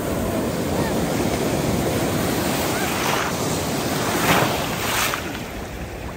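Sea surf washing and breaking, with wind buffeting the microphone; a few louder breaking waves come through about three, four and five seconds in, the loudest just after four seconds.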